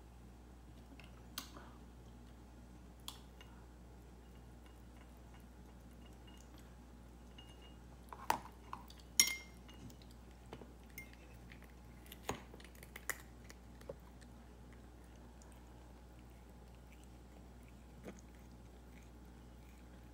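A cat eating from a small ceramic dish: sparse clicks and clinks of mouth and dish, bunched about eight to nine seconds in and again around twelve to fourteen seconds, over a faint steady low hum.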